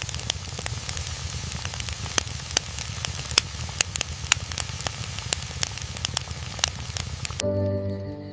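Campfire crackling, with a steady hiss and many sharp pops scattered irregularly through it. Music comes in near the end.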